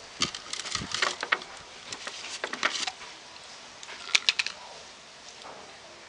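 Plastic lid and drinking glass being handled: a string of light clicks and rattles as the orange lid is worked off the glass of water, then three or four sharper clicks about four seconds in.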